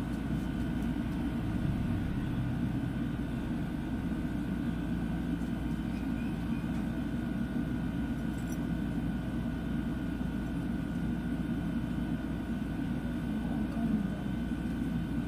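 Steady machine hum with a faint, thin high whine over it, running without a break.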